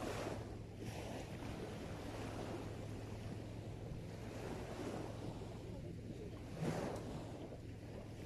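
Sea waves washing onto the shore, with wind on the microphone: two louder rushes, one at the start and one near the end, over a steady low hum.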